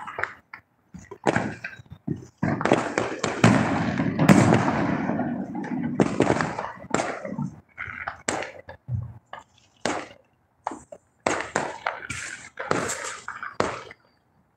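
Neighbourhood fireworks and firecrackers going off: irregular bangs and pops, with a denser, continuous stretch of popping a few seconds in.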